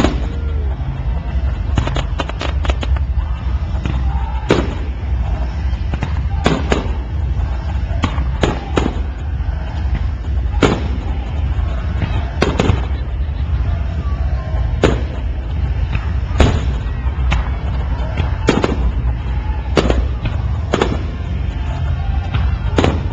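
Aerial fireworks shells bursting, a string of sharp bangs at uneven intervals, about one a second, over a steady low rumble.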